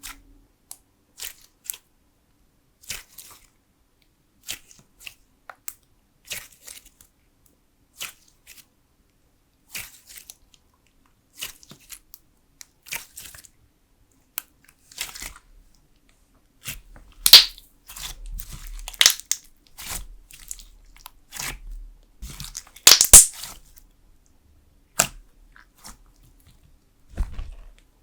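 Jelly slime being pressed and poked by fingers, giving short wet clicks and squelchy pops. They are sparse at first, then come thicker and louder in the second half.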